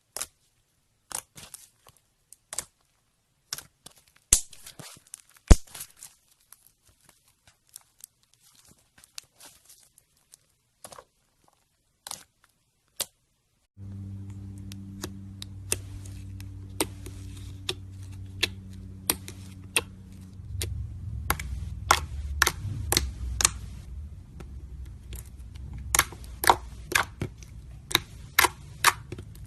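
Slime being squished and pressed by hand, giving irregular sharp clicks and pops. About halfway through, a steady low hum starts beneath them.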